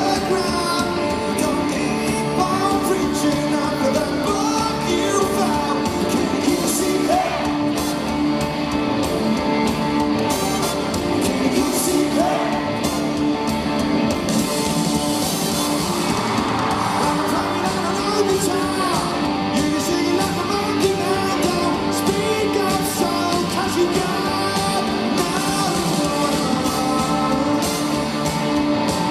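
Live rock band playing, with guitars and a lead vocal singing over them.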